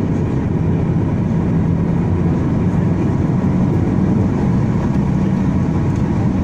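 Boeing 737-800's CFM56-7B turbofan engines running, heard inside the cabin as a steady low rumble with a hum that rises slightly in pitch.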